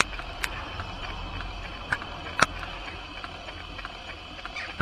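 Small live-steam model engine, a 1:12 scale twin flywheel engine, running under steam. It gives a steady hiss over a low rumble, with a few scattered sharp clicks, the loudest about halfway through.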